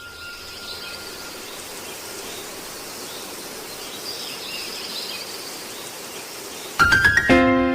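A steady hiss of ambient background with faint high chirps. Near the end a few quick struck notes come in and a chord rings on as music starts.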